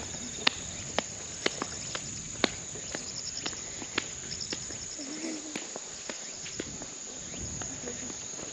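A steady, high-pitched drone of summer insects, with a few pulsed chirps in the middle. Footsteps tread through grass at about two steps a second.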